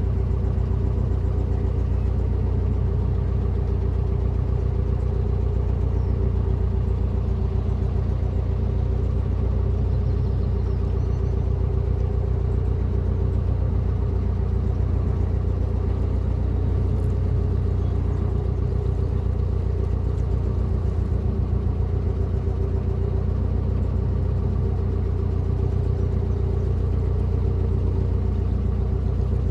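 A narrowboat's inboard diesel engine running steadily as the boat cruises slowly, with a low, even throb that does not change.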